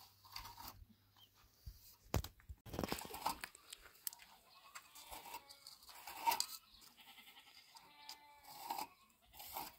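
An animal calling a few times, short pitched cries about halfway through and again near the end, among scattered crunches and knocks; the loudest crunching comes about two to three seconds in.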